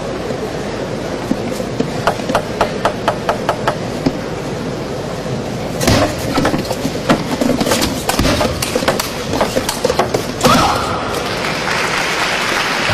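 Celluloid table tennis ball bounced repeatedly before a serve, about four or five quick clicks a second. A rally follows, with the ball clicking off paddles and table in an irregular run that ends with a louder hit. Crowd applause rises near the end.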